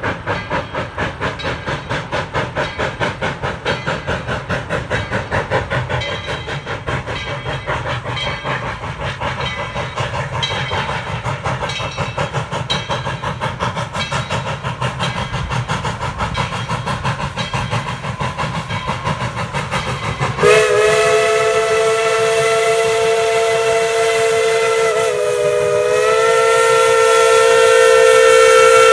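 Tweetsie Railroad No. 12, a 4-6-0 steam locomotive, working hard with a fast, even beat of exhaust chuffs. About twenty seconds in, its steam whistle starts one long blast that wavers in pitch briefly midway and then holds steady.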